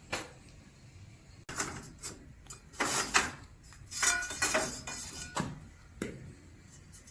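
A metal file worked on a hand saw's teeth: several short, irregular scraping strokes, with the steel saw blade ringing briefly on some of them about four to five seconds in.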